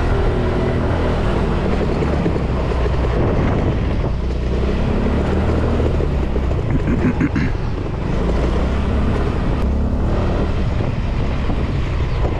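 Small motor scooter engine running under steady wind noise buffeting the microphone while riding along.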